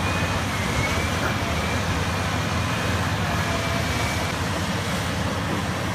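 Komatsu D155 bulldozer's diesel engine running steadily under heavy load as it pushes earth, with a faint high whine over it.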